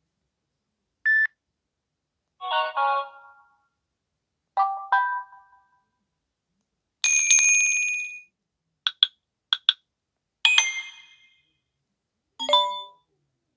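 Samsung Galaxy Wide3 notification sounds played one after another with short silences between: a single short beep, several short multi-note chimes, a longer bright tone, and a pair of quick blips.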